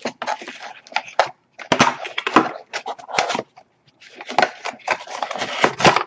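Cardboard box being handled: a rapid series of scraping, crackling and knocking noises as hands flex and dig at the inside of the box, with a couple of short pauses.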